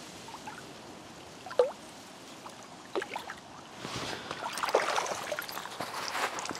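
Lake water splashing and sloshing as a carp is released from a sling in the margin, with a couple of small splashes early and a longer stretch of splashing about four seconds in as the fish swims off.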